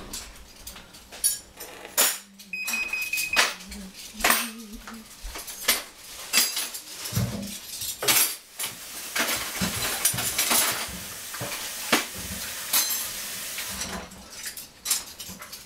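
Dishes, pots and utensils clinking and knocking irregularly as someone works in a kitchen, with a brief high beep about three seconds in and a stretch of hiss in the middle.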